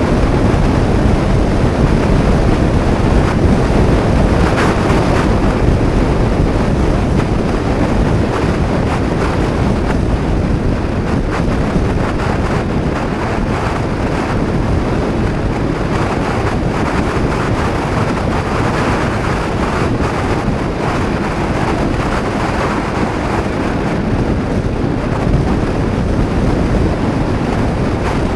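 Loud wind buffeting the action camera's microphone on a Honda PCX 125 scooter riding at road speed: a steady rushing rumble, heaviest in the low end, with the scooter's running and road noise buried beneath it.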